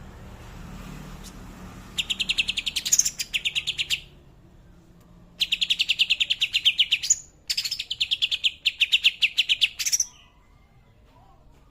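Greater green leafbird (cucak hijau) singing three bursts of rapid, evenly repeated notes in its 'tembakan' rattling song, imitating the kapas tembak's call.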